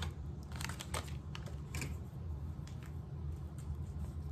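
Plastic disposable piping bag crinkling and crackling in the hands, in irregular clusters of small crackles, over a steady low hum.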